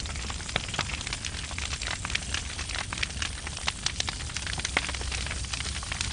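Fire crackling, with many irregular sharp pops over a steady low rush.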